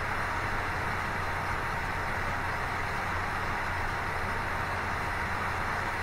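Mini CNC 3018 engraver running a job, its 775 DC spindle motor giving a steady, even whir with a low hum underneath.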